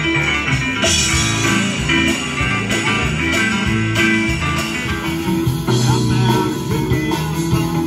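Live band playing, guitars to the fore with keyboard and drums.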